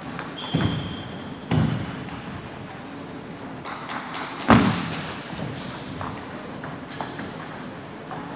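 Table tennis play in a large hall with a sprung wooden floor: three heavy thuds that ring on in the room, a few light clicks of the ball, and short high squeaks, typical of shoes on the wooden floor.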